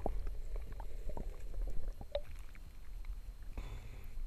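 Muffled underwater sound of a river, heard through a GoPro's waterproof housing held under the surface: a low rumble with scattered small clicks and ticks. A brief wash of noise comes near the end as the camera comes back up out of the water.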